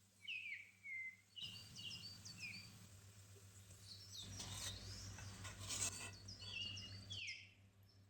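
Birds chirping with short, high, falling calls over a steady low hum, with a louder stretch of noise and a few clicks in the middle.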